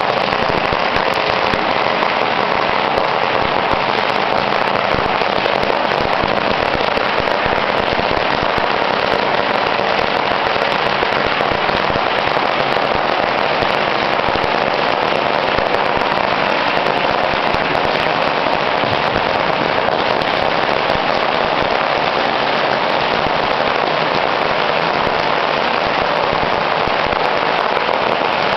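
Many firecrackers going off at once, a dense, unbroken crackle of rapid bangs that holds at a steady loudness throughout.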